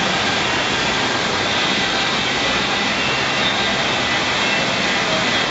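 Steady rush of water from a FlowRider sheet-wave machine, a thin sheet of pumped water streaming up the ride surface under a bodyboard rider.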